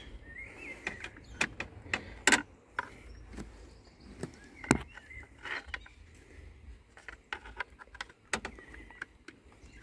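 Irregular metallic clicks and light knocks as a new timing belt is worked by hand onto the pulleys of a Rover 1.8 K-series engine, with parts and tools tapping against the engine, over a low background rumble.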